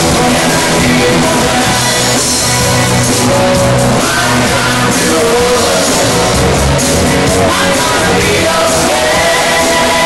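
Live band playing a rock song, loud and continuous: drum kit, congas, guitar and keyboards, with singing, heard from the audience in the room.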